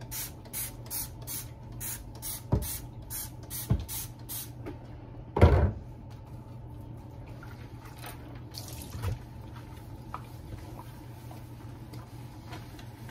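Trigger of a Dawn Powerwash dish spray bottle pumped rapidly, about three short hissing sprays a second, misting soap over a stainless steel sink. A loud knock about five seconds in, then quieter scrubbing of the sink with a sponge.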